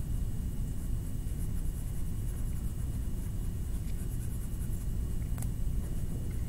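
Faint repeated scratching of colouring strokes on paper over a steady low rumble, with a single sharp click about five seconds in.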